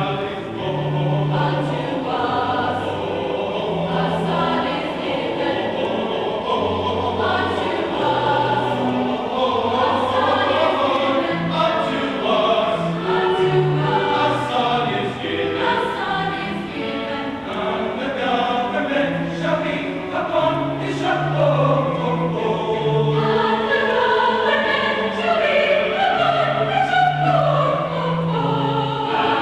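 A choir singing, several voice parts holding and moving between sustained notes, over steady low notes.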